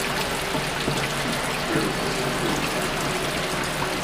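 Steady stream of water running from a reverse osmosis system's dispensing faucet into a stainless steel sink, as the new system's storage tank is drained to flush it.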